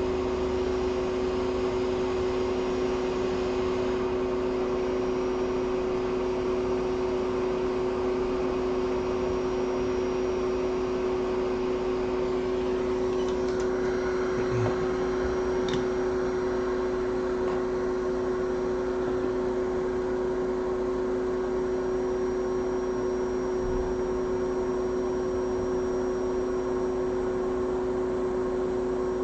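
Hot air rework station blowing steadily: an even fan hum with a held tone, which drops in pitch as the blower shuts off at the very end.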